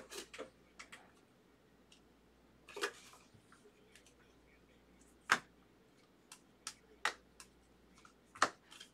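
Baseball trading cards being handled and flipped through on a table: scattered sharp clicks and taps as cards snap against each other and are set down, with a brief rustle about three seconds in and the loudest clicks about five seconds in and near the end.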